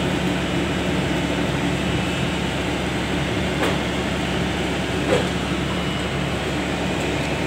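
Steady low engine drone of a mobile boat hoist running while it lowers a fishing boat in its slings, with a couple of short knocks about halfway through.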